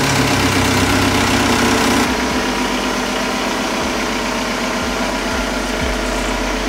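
Toyota 3.4-litre V6 in a lifted pickup, running at a steady idle just after being started while the truck creeps out of the garage. It gets a little quieter and duller about two seconds in.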